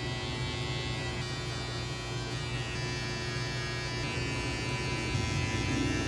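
Electric T-blade hair trimmer buzzing steadily as it is run along the sideburn and around the ear to detail a fade.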